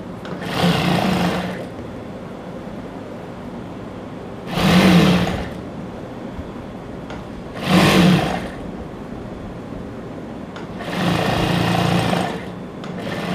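Sewing machine stitching in four short runs, each about a second or a second and a half long, as a trouser leg's side seam is sewn closed. A steady hum carries on between the runs.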